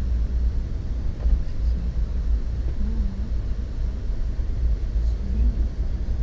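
Steady low rumble of a moving passenger train running on the rails, heard from inside the coach.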